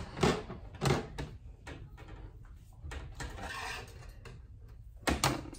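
Metal wire wreath forms knocking and rattling against each other and the tabletop as they are handled and joined with plastic zip ties: a few sharp knocks in the first second and again near the end, with a softer scraping rattle in between.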